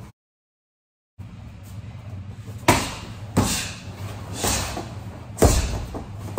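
Hard strikes landing on a freestanding Century Versys fighting dummy. After about a second of silence come five sharp thuds and slaps, the loudest early on and just before the end, where the dummy is thrown down onto the mat.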